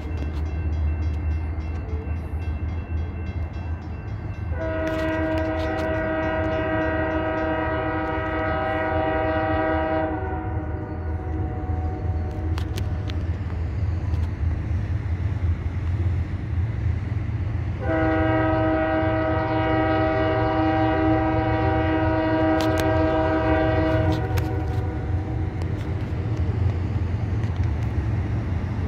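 Air horn of an approaching CSX GE AC4400CW diesel locomotive leading a grain train, sounding two long blasts of about five to six seconds each, roughly eight seconds apart. A steady low rumble runs underneath.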